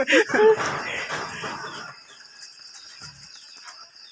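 Crickets chirring steadily in the background. In the first half-second a voice trails off, and a noisy rustle fades out by about two seconds in.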